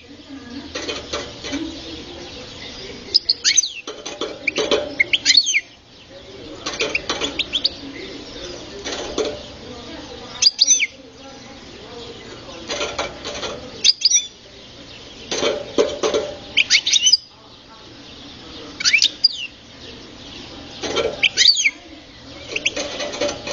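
Young captive Algerian goldfinch singing: short bursts of quick, high twittering notes, one every one to two seconds.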